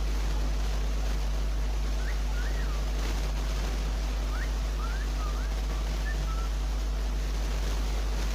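A steady low hum with hiss, under a few faint, short chirps from a small pet bird: two about two seconds in, then a quick run of rising and falling chirps from about four to six and a half seconds in.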